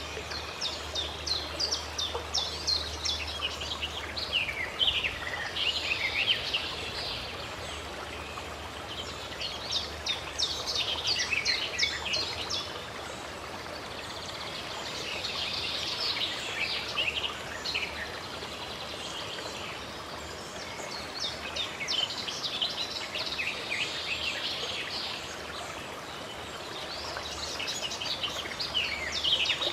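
Songbirds chirping in repeated bouts of rapid, high notes over a steady rush of running water.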